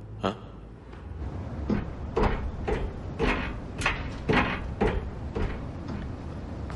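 Footsteps on metal stairs, about two steps a second, over a steady low outdoor rumble, with a single click just before them.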